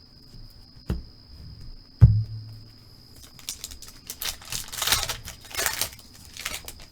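Two sharp knocks, then a foil trading-card pack being torn open and crinkled.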